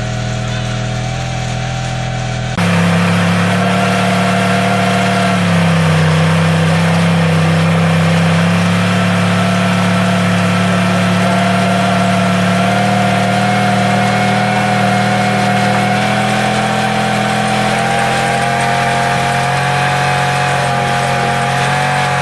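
2016 Yamaha YZF-R1's inline-four engine held at high revs for a burnout, at a fairly steady pitch with a slight dip a few seconds in. The sound steps up abruptly about two and a half seconds in.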